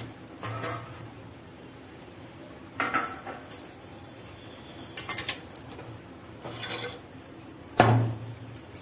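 Steel spatula scraping and knocking against an aluminium kadhai holding boiled raw-banana pieces, in scattered short strokes a second or two apart. A loud metal clank near the end as the kadhai is taken off the stove.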